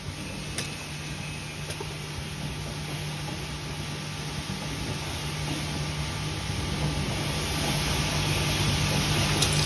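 Steady hum and hiss of running factory machinery, slowly growing louder toward the end, with a couple of light clicks of metal hinges being handled in the first two seconds.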